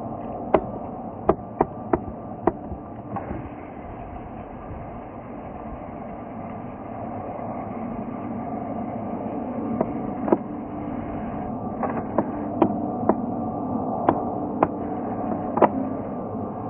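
Steady jet-engine rumble from a China Southern Airbus A330-300 with Pratt & Whitney PW4000 engines, growing a little louder partway through. A series of sharp clicks is heard, a few near the start and more in the second half.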